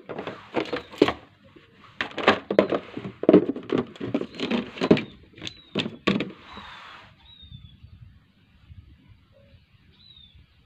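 Clear plastic food containers and lids clattering and clicking as they are handled and stacked: a quick run of plastic knocks for about six seconds, then a short rustle, after which it goes quiet.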